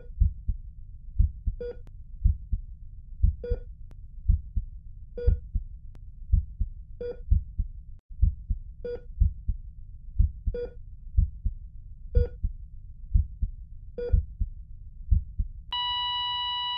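Heartbeat sound effect with steady low thumps, and a short heart-monitor beep about every two seconds. About a second before the end the beeps give way to a long, steady flatline tone.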